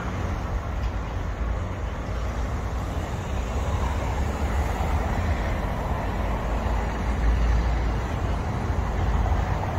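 Steady outdoor city street noise with a continuous low rumble underneath.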